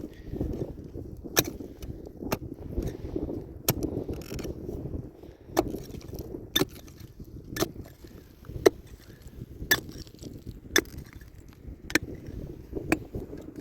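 Sharp knocks about once a second, over low scraping and rumbling.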